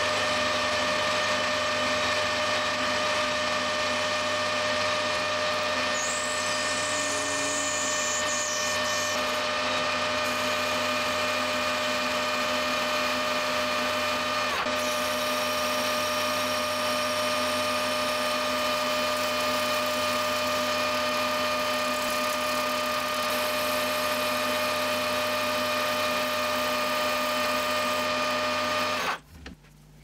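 Metal lathe running steadily with a four-jaw chuck spinning, giving a steady whine, while a boring bar cuts an offset bore in a Delrin part. The lathe cuts off suddenly about a second before the end.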